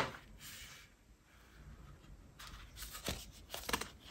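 Sheets of paper being handled and shifted, rustling in short irregular spells, with a sharp tap at the very start.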